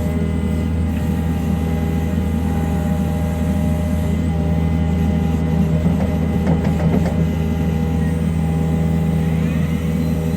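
Excavator's diesel engine running steadily at a constant speed, with a short cluster of light metallic knocks about six to seven seconds in.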